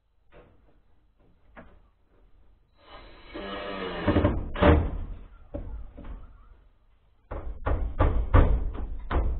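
Hammer blows fixing profiled-steel sheet trim around a window opening: a few scattered knocks, a short pitched metallic drone about three seconds in, then a quick run of sharp strikes, about four a second, from about seven seconds in.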